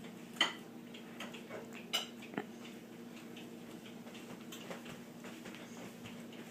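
Scattered light clicks and taps of kitchen utensils against dishes, the sharpest about half a second in and twice around two seconds in, over a steady low hum.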